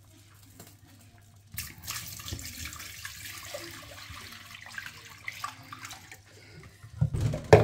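Water poured from a plastic jug into an empty non-stick cooking pot, splashing steadily for about four seconds, starting about a second and a half in. Near the end come a couple of loud knocks.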